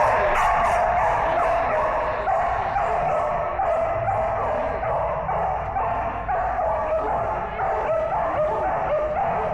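Dog barking and yipping almost without pause.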